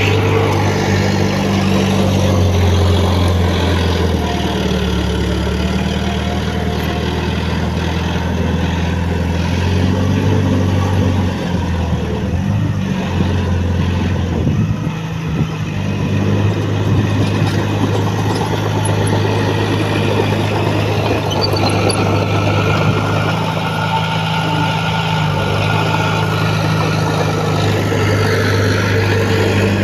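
Diesel engine of heavy earthmoving equipment running steadily, its note shifting and easing off briefly around the middle before settling again.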